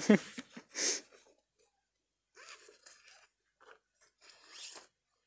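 Plastic curd packet and backpack fabric rustling and crinkling as the packet is handled and put into an open backpack. A short rustle comes about a second in, then a pause, then a run of scattered rustles, loudest near the end.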